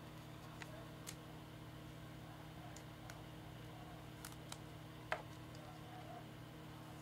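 Faint scattered clicks and ticks of a die-cut trading card and a clear plastic penny sleeve being handled as the card is worked into the sleeve, one sharper click about five seconds in, over a low steady hum.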